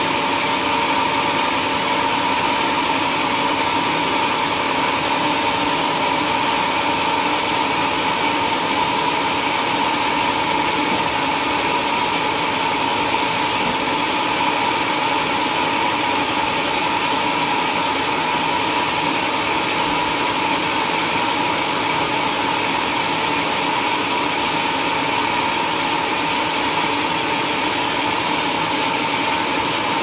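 Large band sawmill running steadily, its band blade set in a huge log: an unbroken mechanical noise with a constant high whine.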